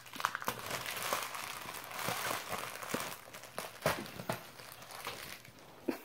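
Packaging being torn open along its perforated strip: continuous crinkling and rustling with a few sharp snaps as it pulls apart.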